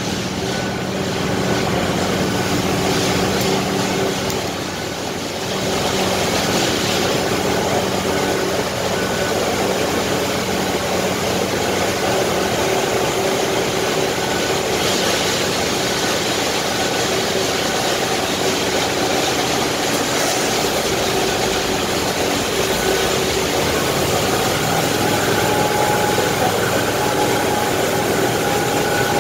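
Concrete-cutting saw equipment running steadily: a constant machine drone holding a few steady tones, with a higher whine coming in about 24 seconds in.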